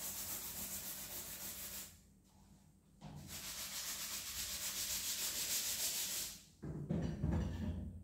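Scrubbing at a kitchen sink: two spells of quick rasping strokes with a short pause between them, then a few clattering knocks near the end.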